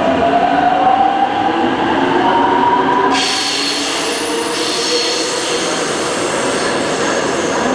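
Seoul subway train pulling out of the station, its traction motors whining in a pitch that rises as it speeds up, over a steady rumble of wheels on track. About three seconds in, a high-pitched wheel screech suddenly joins.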